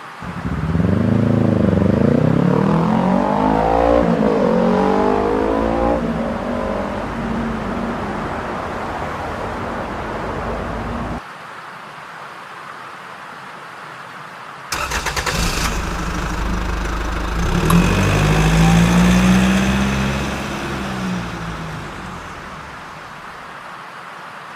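Car engine revving sound, twice. A rising and falling rev lasts about eleven seconds and cuts off abruptly; after a short gap a second one starts suddenly with a crackle, revs, and fades near the end.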